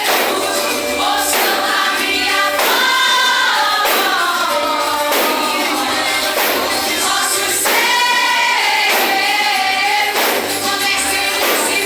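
A church vocal group singing a gospel song together over musical accompaniment, with a regular beat about every second and a third.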